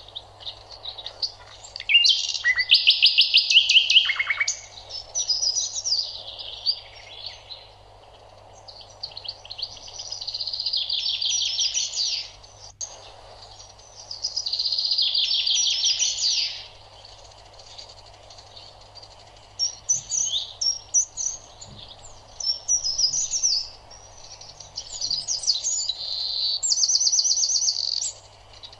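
Songbirds singing: phrases of rapid trills and chirps in bouts of two or three seconds, several times over, with a faint steady hum underneath.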